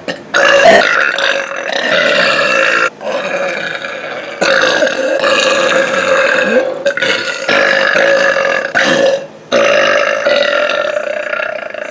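A person belching loudly in a run of long, drawn-out burps, each lasting two to three seconds, with brief breaks between them.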